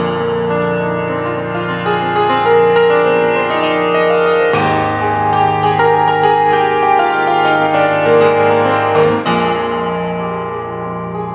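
Instrumental break of a song played on keyboard with a piano-like sound: sustained chords that change about four and a half seconds in and again about nine seconds in.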